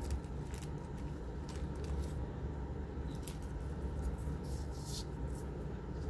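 A clear plastic parts bag crinkling as small electronic components (resistors, LEDs, capacitors, transistors) are shaken out and handled on a soldering mat, in short scattered rustles and light clicks, one longer rustle near the five-second mark. A steady low hum runs underneath.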